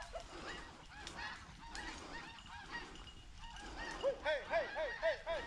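A pack of rabbit hounds baying on a rabbit's trail: many faint, overlapping short calls at different pitches. About four seconds in, one dog's calls come louder in a quick run of about four a second.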